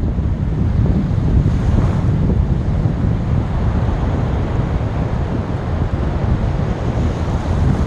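Sea waves washing onto a beach, with wind buffeting the microphone. The result is a steady, deep rumbling noise.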